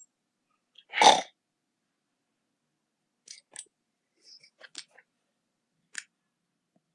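A sleeping person snoring: one short, loud snore about a second in, followed by a few faint clicks.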